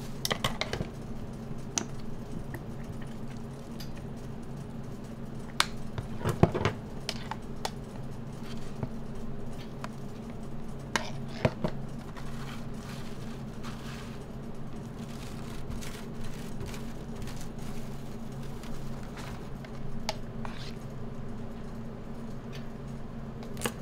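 Scattered clicks and clatter of utensils on a crepe stall's metal tray and topping containers as a crepe is filled and topped, over a steady low hum of equipment.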